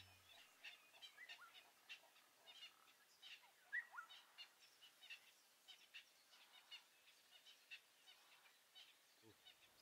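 Faint dawn birdsong: scattered short chirps from several small birds, with a few brief rising whistles, the loudest about four seconds in.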